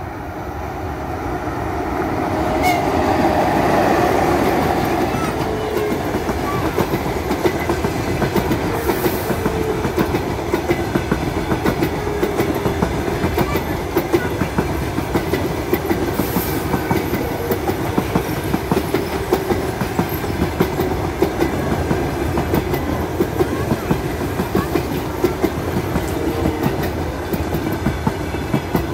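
Electric locomotive hauling a long passenger train passes close by, its noise building to a peak about four seconds in. Then the coaches roll past with their wheels clicking steadily over the rail joints.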